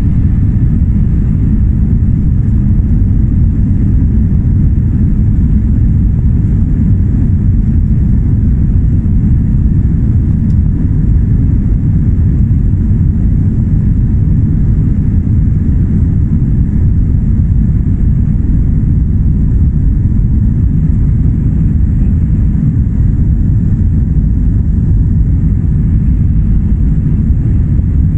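Steady, loud low rumble inside the cabin of a jet airliner taxiing on the ground, from the engines at low power and the rolling airframe, heard from a window seat over the wing. It holds an even level with no build-up of takeoff thrust.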